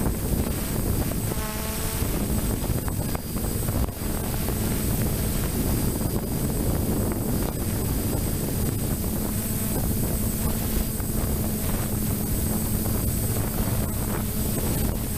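Steady wind rumble buffeting the microphone over a constant low hum, as from a DJI F550 hexacopter's motors and propellers in flight.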